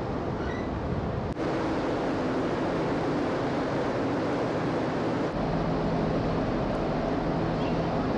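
Steady low rumble and hum of a passenger ferry under way, with a rush of noise over it; the sound shifts abruptly about a second in and again about five seconds in.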